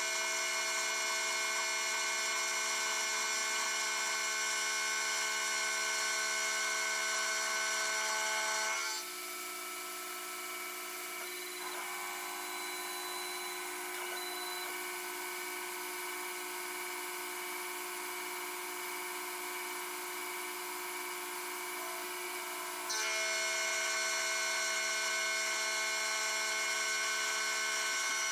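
Taig 5019CR CNC mill running, its spindle and motors giving a steady many-toned whine while a single-flute 6 mm end mill mills aluminium. About nine seconds in the sound drops to a quieter steady whine, and it comes back to full level about 23 seconds in.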